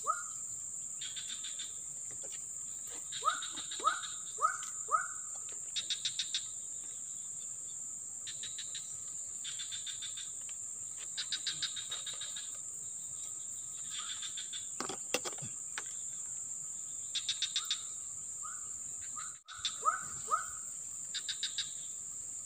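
Insects droning steadily on one high note, with another insect's rapid pulsed chirps repeating about once a second. Over this a bird gives a run of four short, falling whistled notes about three seconds in, and a similar run near the end.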